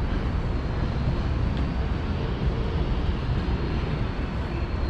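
Steady outdoor noise of a rainy city street: an even hiss over a loud, fluttering low rumble.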